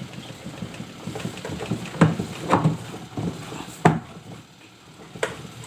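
Parts of a washing machine being handled during reassembly: four sharp knocks spread over a few seconds, with low clatter between them.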